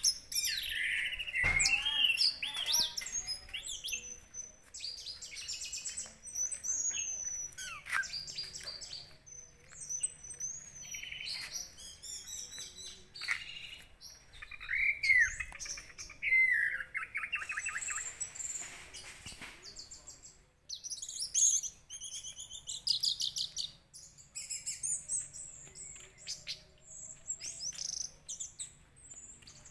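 Orange-headed thrush singing: a varied run of whistled phrases, fast trills and sliding notes with short gaps between them.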